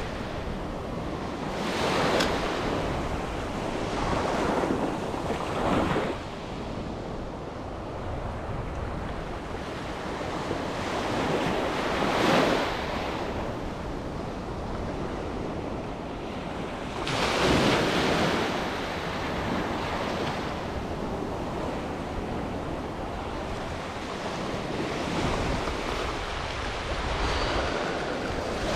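Small waves breaking and washing up a sandy beach, surging every few seconds over a steady background of surf, with wind on the microphone.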